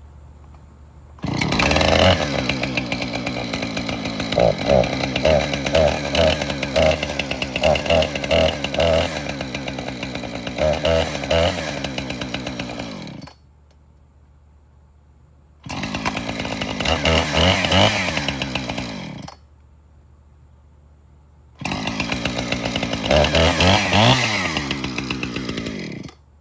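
Husqvarna 455 Rancher two-stroke chainsaw started and run three times, revving in quick blips of the throttle and cut off suddenly after each run. It runs perfectly fine.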